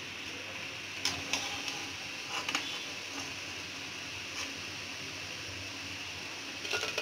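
Pakoras deep-frying in oil in a steel kadai, a steady sizzle, with light metal clinks of a slotted spoon against the pan about a second in, around two and a half seconds in, and near the end.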